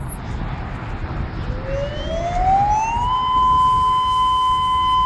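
Federal Signal outdoor tornado warning siren starting up: about a second and a half in its pitch begins rising, and it settles into a steady high tone, getting louder.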